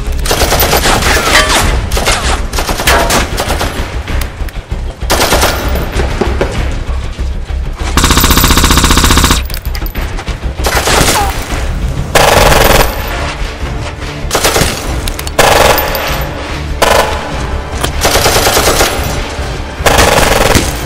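Repeated bursts of automatic rifle fire, with one long unbroken burst about eight seconds in, over background music.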